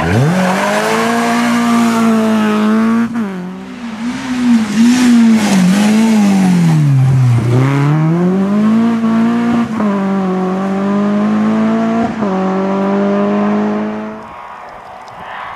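Renault Clio rally car's four-cylinder engine revving hard, its pitch climbing and dropping again and again through gear changes and lifts, with short sharp cracks at several of the shifts. About a second before the end the engine drops away to a much quieter sound.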